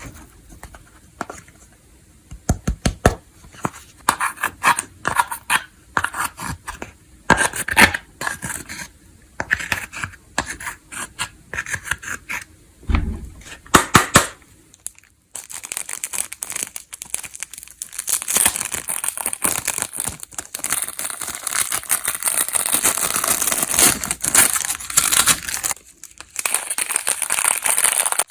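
Slime being squeezed and worked by hand: irregular sticky pops and clicks at first, then from about halfway a steady, dense crackling, the crunch of crispy slime being kneaded.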